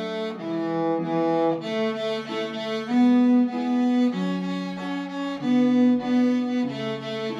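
Solo cello bowed, playing a simple melody one note at a time, each note held between about half a second and a second and a half.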